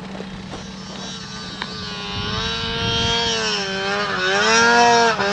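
Snowmobile engine climbing toward the microphone, growing louder from about two seconds in, its pitch rising and falling as the rider works the throttle. A steady low engine hum runs underneath.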